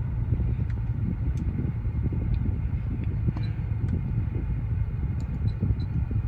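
Car engine idling steadily as a low rumble, with a few faint clicks.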